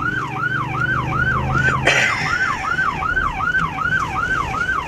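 Police car electronic siren on yelp: a fast rising-and-falling wail repeating about three to four times a second, with a low steady vehicle hum beneath and a brief rush of noise about two seconds in.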